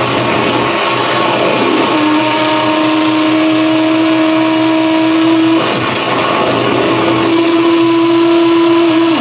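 Live harsh noise music from synthesizer and electronic noise gear: a dense wall of noise with a steady held drone tone entering about two seconds in, breaking off briefly past the middle and then returning.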